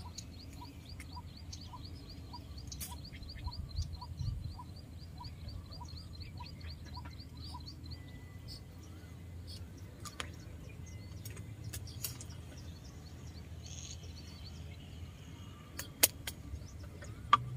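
Outdoor ambience by a canal: a bird calling a short repeated note about three times a second, with a faster high chirping over it, both stopping about seven seconds in, over a steady low rumble of distant road traffic. A few sharp clicks come later, the loudest near the end.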